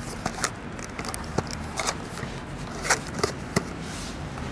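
A cardboard fireworks battery box being handled and set down on wet asphalt: about ten irregular, sharp clicks and taps over a steady low outdoor rumble.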